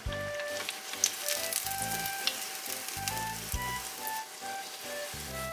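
Oil sizzling and crackling as breaded croquettes deep-fry in a pot, starting about half a second in.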